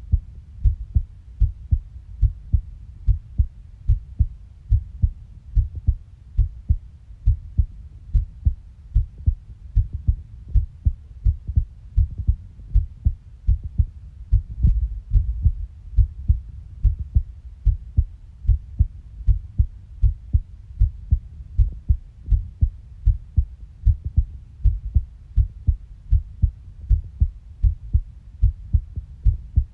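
Heartbeat: a steady, regular rhythm of short, low thumps.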